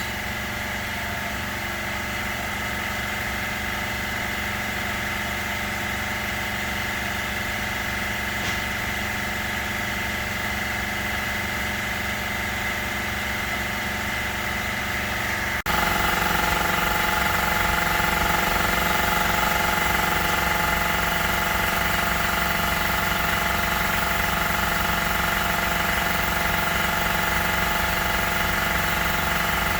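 Steady hum of running shop machinery, made of several fixed tones. About halfway through it turns abruptly louder and its pitch pattern changes.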